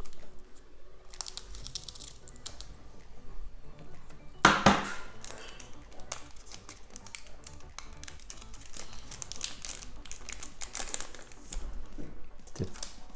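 Foil wrapper of a Pokémon card booster pack crinkling and tearing as it is pulled open, with many small crackles and one louder rustle about four and a half seconds in.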